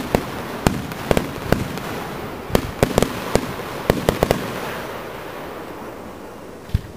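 Fireworks display: aerial shells bursting in quick succession, sharp bangs over a steady crackle, thinning out and dying down after about four seconds.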